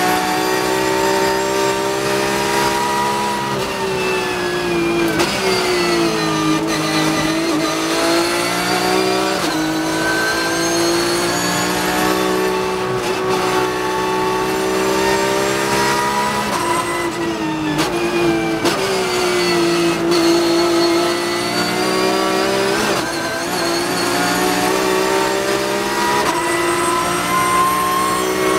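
Porsche 991.2 GT3 Cup race car's naturally aspirated flat-six at high revs, heard from inside the cockpit. Its pitch rises and falls with the throttle through the corners, with a few quick drops in revs that soon recover.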